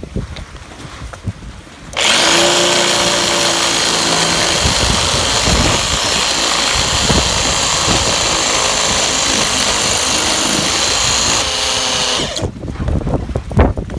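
DrillMaster 1/2-inch corded hammer drill starting up about two seconds in and running steadily for about ten seconds with a masonry bit, drilling into cement, then stopping suddenly. Wind rumbles on the microphone before it starts.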